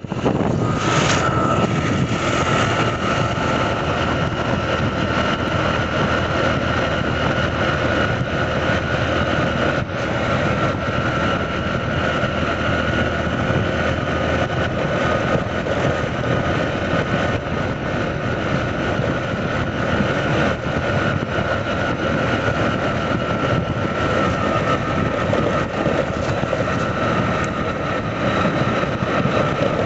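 Motorcycle riding along at a steady road speed: a steady mix of engine, wind and road noise with no change in pace.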